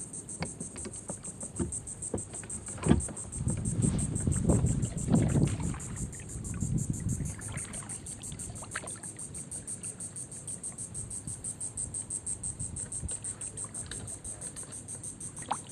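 Kayak paddle strokes with water dripping and splashing, over a steady high-pitched insect trill from the surrounding salt marsh. A louder low rumble runs from about three to seven seconds in.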